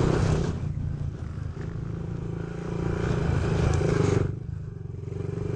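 Small four-stroke dirt bike engine running under throttle. Its revs rise and ease off, and it drops back sharply for a moment a little after four seconds in before picking up again.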